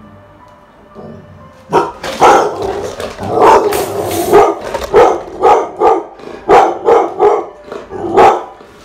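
Pit bull barking loudly in a rapid run of about a dozen sharp barks, starting a little under two seconds in. It is alarm barking at a masked, sheet-covered figure the dog does not recognise.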